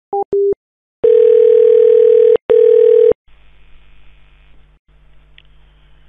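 Telephone line tones after a hang-up: two short beeps, then a loud steady dial tone that breaks briefly and stops about three seconds in, followed by faint line hiss and hum.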